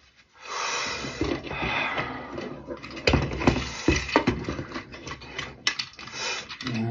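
Beatboxer's mouth sounds imitating some noise for listeners to guess: a long breathy hiss, then a rapid series of sharp clicks and pops, ending with a short pitched vocal sound.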